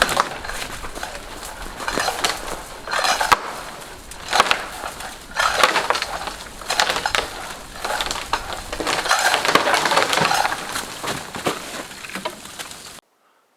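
A large dead tree cracking and splintering as it leans over, with branches snapping and crashing in repeated bursts as it hangs up in a neighbouring tree. It cuts off suddenly near the end.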